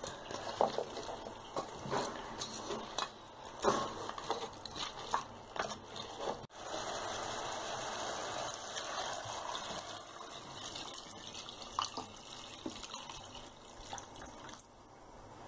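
Sheep bones cooking in a metal pot: a wooden spoon scraping and knocking against the pot over sizzling, then a steadier sizzle, and near the end water being poured into the pot.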